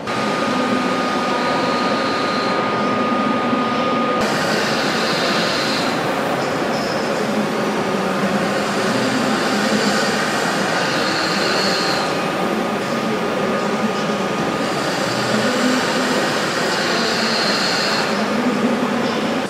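Steady rumble and hiss of a train standing or moving in a large railway station train shed. A thin steady whine runs through the first four seconds or so, then stops.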